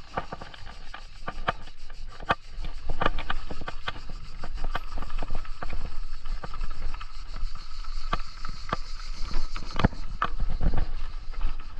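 Bicycle being ridden: irregular knocks and rattles from the frame and parts over bumps, with a steady low wind rumble on the microphone.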